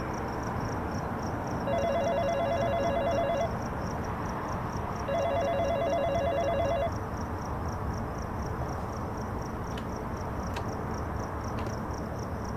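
Telephone ringback tone heard on a call as it rings out: two warbling rings, each just under two seconds long with a pause of about a second and a half between them, over a steady line hiss, with a few faint clicks later on.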